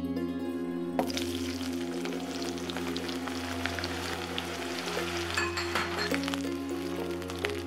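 Red onion wedges sizzling as they fry in hot oil in a pan, starting about a second in. A wooden spatula stirs them near the end, adding a few scrapes and clicks.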